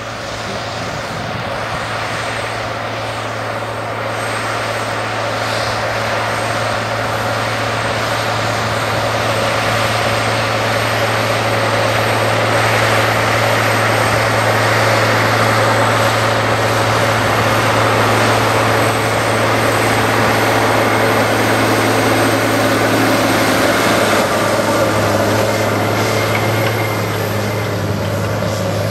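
Large four-wheel-drive farm tractor's diesel engine running steadily under load as it pulls a laser plane scraper through dry soil, a constant low drone with a broad rushing noise. It grows louder over the first dozen seconds as the machine draws near.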